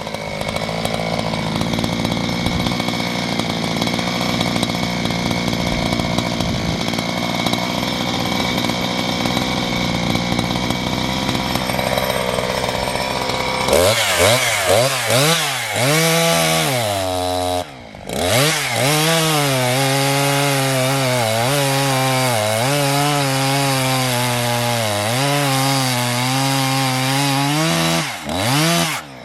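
Two-stroke chainsaw cutting through firewood under load. About halfway through it comes out of the cut and runs with the throttle blipped, its pitch rising and falling, with a short break about two-thirds of the way in.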